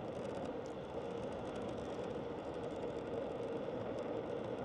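Steady road noise from a vehicle driving along a street, with a faint steady hum.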